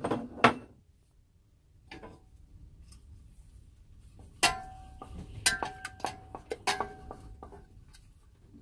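A wooden spoon stirring porridge in a stainless steel saucepan, knocking against the pan several times so that it rings briefly with each knock, with a few sharper clicks near the start.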